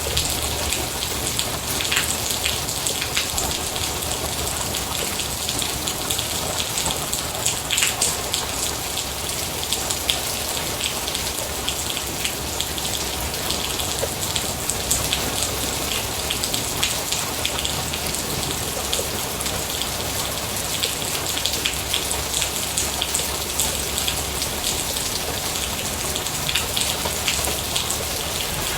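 Steady rain falling on a surface, a constant patter with dense drop ticks and a few louder drops.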